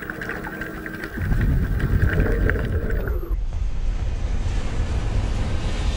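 Rushing, rumbling wind-and-water noise that grows louder about a second in. Scattered clicks and a thin steady tone sound over it, then cut off sharply about three seconds in, leaving an even rushing hiss.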